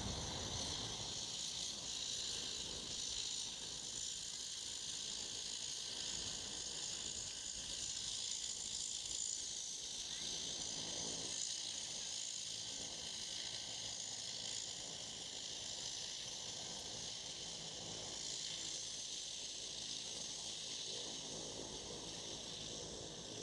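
A steady, faint high hiss with no engine or other distinct sound standing out.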